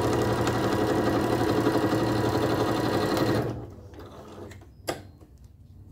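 Sewing machine stitching a seam at a steady high speed, stopping suddenly about three and a half seconds in; a single sharp click follows about a second later.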